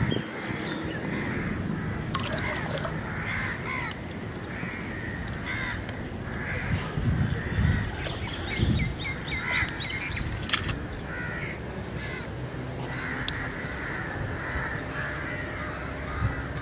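Crows cawing over and over, with many short harsh calls overlapping throughout. A few low thumps and sharp clicks come in between.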